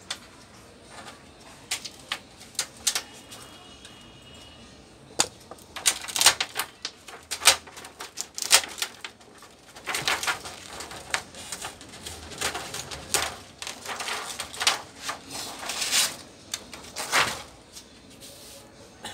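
Crinkling and flapping of a thin plastic reflector sheet being lifted off an LED TV's backlight frame, mixed with sharp clicks and taps as the metal frame is handled. It is sparse at first and busiest from about five seconds in until near the end.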